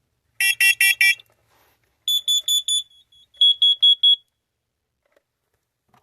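Carbon monoxide detectors in alarm, set off by canned CO test gas, beeping in groups of four. One detector gives four quick, buzzy beeps; then another gives two groups of four higher, piercing beeps.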